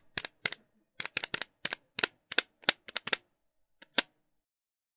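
A typing sound effect: a run of about fourteen sharp key clicks at an uneven pace, stopping about four seconds in.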